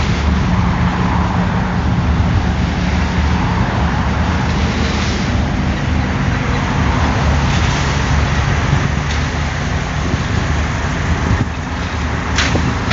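Caterpillar mini excavator's diesel engine running steadily under load, with one short clank near the end.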